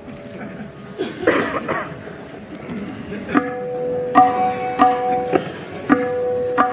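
Tabla struck in a short run of single ringing strokes, about six in the last three seconds, each note holding a steady pitch after the hit. The strokes are a sound check of the drum through the PA, made just after the 500–700 Hz range and the low end were cut.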